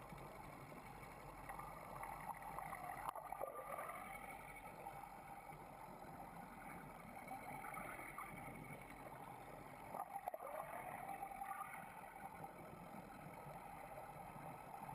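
Air-powered tote mixer running, its disc churning liquid in the tote: a steady watery wash, with two brief louder surges about three and ten seconds in.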